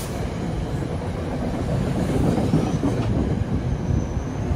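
NJ Transit Comet coach train rolling past close by, its wheels clattering over the rail joints, with a faint high wheel squeal about halfway through and again near the end.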